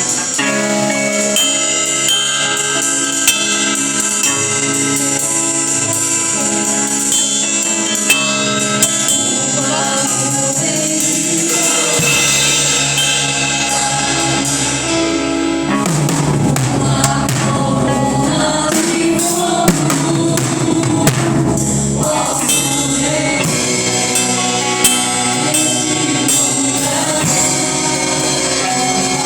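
Live gospel worship music: sustained chords with percussion hits and singing, the voices most prominent about two-thirds of the way through.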